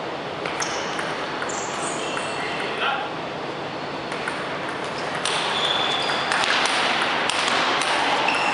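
Table tennis ball being hit back and forth in a rally, a string of sharp pocks off the rubber-faced paddles and the table. From about five seconds in, the noise of spectators' voices rises in the hall.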